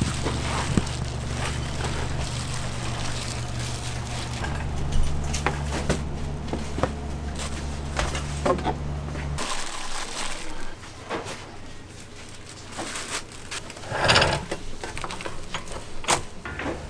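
A steady low machine hum runs under scattered clicks, knocks and rustles of hands handling rice cakes, plastic wrap and wooden trays. The hum stops abruptly about nine seconds in, leaving only the handling sounds, with a louder rustle near the end.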